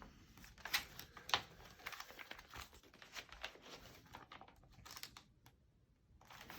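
Faint rustling and crinkling of paper, as magazine pages are handled and turned, with two sharper crackles in the first second and a half and a brief hush near the end.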